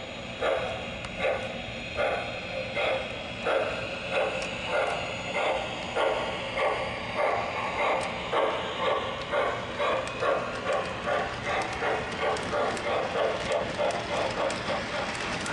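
Model steam locomotive's sound system chuffing in a steady rhythm. The chuffs come quicker as it goes, from a little over one a second to two or three a second.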